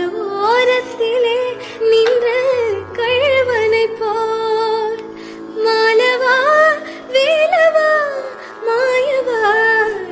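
Background music: a woman singing a Tamil song with a sustained, ornamented melody over light accompaniment.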